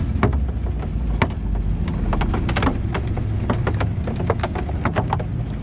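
Boat motor running steadily at low speed while a fishing net runs out over the gunwale, its floats and weights knocking against the hull in quick, irregular clicks.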